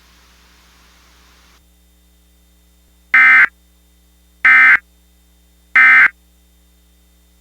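Three short bursts of Emergency Alert System digital data tones, evenly spaced about a second and a quarter apart: the end-of-message code that closes an alert. A faint hiss fades out before the first burst.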